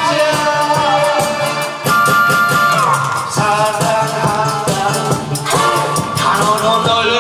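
Male singer singing a Korean trot song into a handheld microphone over backing music with a steady beat.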